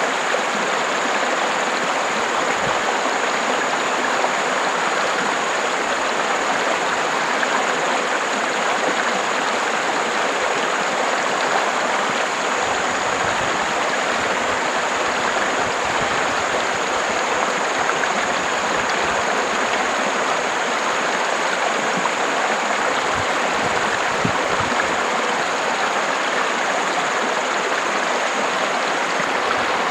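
River water rushing steadily over rocks, an even, unbroken splashing flow, with a few brief low rumbles mixed in.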